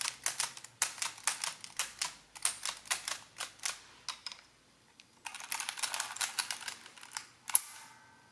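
Precisa 102-1 mechanical adding machine, cover off: a run of sharp key clicks as a number is entered. Then the crank handle is pulled, bringing a dense clatter of the working mechanism and one loud snap near the end with a brief metallic ring.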